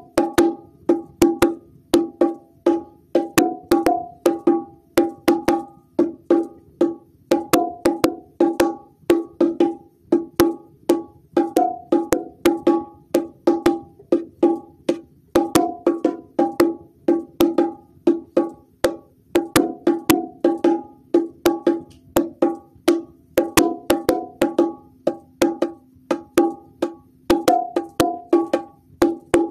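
Bongo drums played by hand in a fast, steady, repeating rhythm of short, sharp, pitched strikes.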